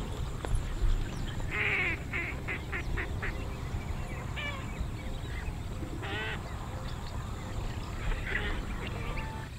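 A bird calling in the background: a quick run of short repeated calls about two seconds in, then single calls around four and a half, six and eight seconds, over a steady low rumble.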